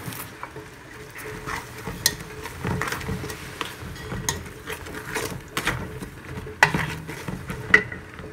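A wooden spatula stirring and scraping a sautéed mixture in a metal pot, with the mixture sizzling. The scrapes and knocks against the pot come irregularly throughout, with two louder knocks near the end.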